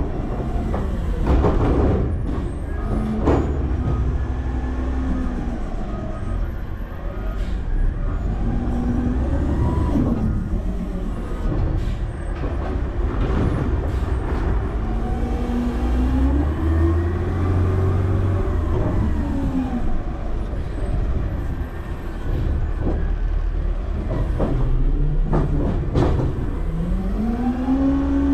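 Garbage truck's diesel engine revving up and down in slow swells as the truck works, heard from inside its hopper, with a few sharp metal clunks.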